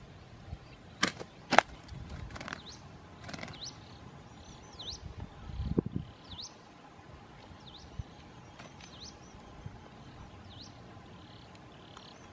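Slingshot shots: two sharp snaps about a second in, then rustling in the grass. A small bird's short high chirps, each a quick down-and-up sweep, repeat every second or two.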